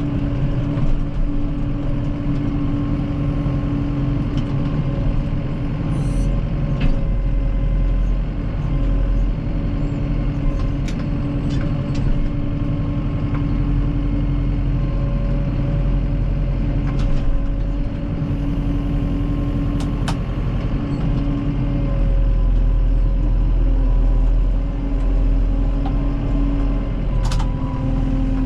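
A vehicle engine running steadily at an even speed, a constant hum with scattered light clicks and rattles, and a small dip and rise in pitch near the end.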